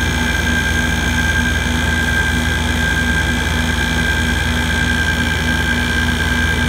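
Hampton Bay (LG) 12,000 BTU window air conditioner running, its compressor and fan giving a steady hum with a constant high whine over it.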